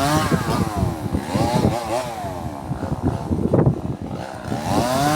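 Two-stroke chainsaw eased off the throttle, its engine pitch dropping and wavering, then revved back up to full speed near the end.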